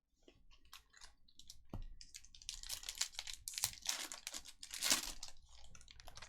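Foil trading-card pack wrappers crinkling and tearing as packs are ripped open, a dense run of crackles that is thickest in the middle, with one knock about two seconds in.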